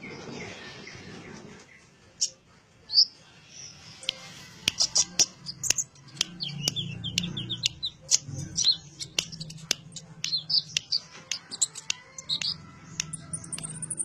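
Caged sunbird (kolibri ninja) calling: a rapid run of short, sharp high chirps and ticks, with a thin, high buzzing trill near the end.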